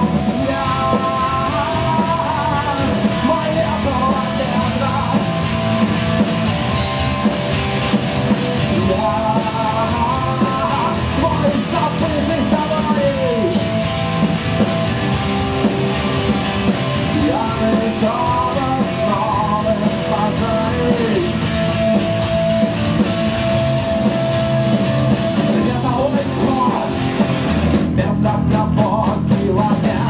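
Live rock band playing loudly on electric guitar, bass guitar and drums, with a lead line of held notes and bends between the verses. Near the end the cymbals drop out for a couple of seconds.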